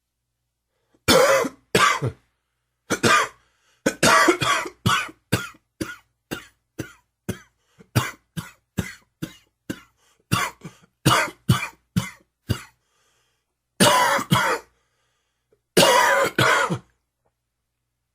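A man's hacking smoker's cough: a long fit of short, rapid coughs, about two a second, followed by two longer, heavier coughs near the end.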